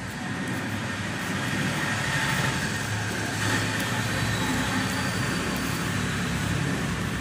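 Steady rushing background noise with a faint low hum, with no distinct paper crinkles or clicks standing out.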